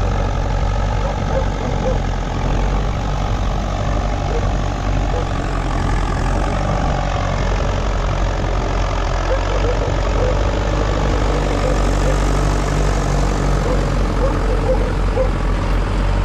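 Classic Massey Ferguson tractor engine running steadily.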